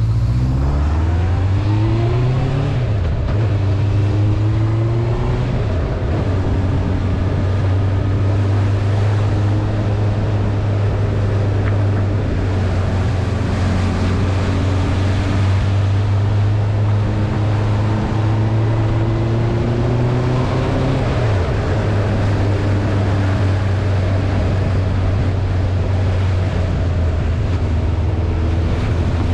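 Motorcycle engine running under way, its note rising as it accelerates over the first few seconds and dipping briefly about three seconds in and again about twenty-one seconds in. Wind rushes over the microphone throughout.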